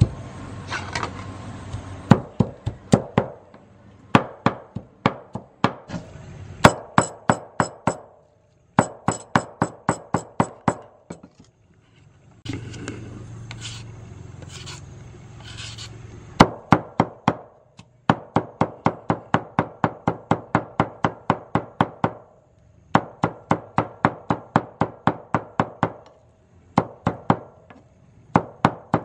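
Cleaver chopping on a round wooden chopping board, mincing a meat mixture: runs of sharp strikes, about four a second, broken by short pauses.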